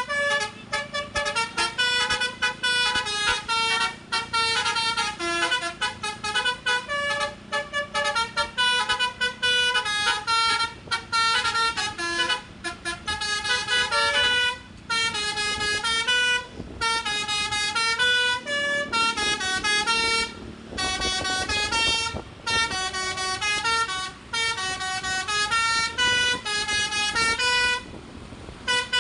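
Bus telolet horn, a multi-tone musical air horn, playing a fast melody of short stepped notes, some sliding in pitch, in phrases broken by brief pauses.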